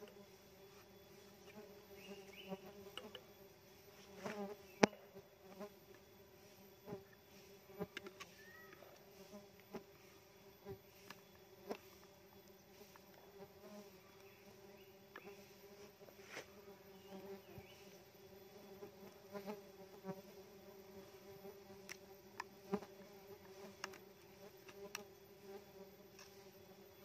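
Steady buzzing hum of a swarm of Tetragonula laeviceps stingless bees flying around their opened nest, with scattered sharp clicks and scrapes from a knife working the nest's honey pots.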